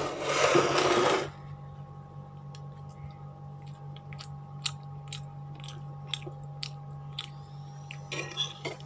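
A loud rush of air noise lasting about a second at the start. Then a metal spoon clicks and scrapes against a glass plate of rice, a string of light clicks about two a second, over a steady electrical hum.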